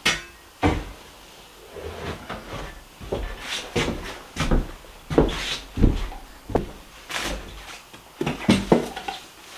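A series of irregular wooden knocks and clunks, about a dozen spread over several seconds, as a long wooden pole is handled and carried, with footsteps on the floor.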